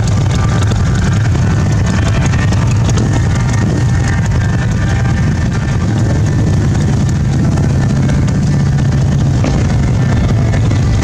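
Several Harley-Davidson V-twin motorcycle engines idling together, a steady low rumble.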